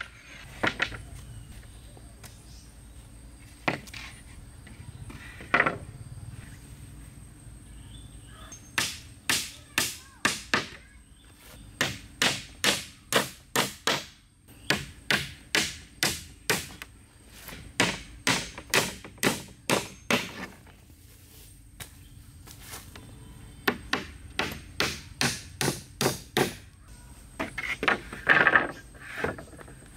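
Small hatchet striking wooden planks in runs of sharp knocks, about two a second, with pauses between the runs.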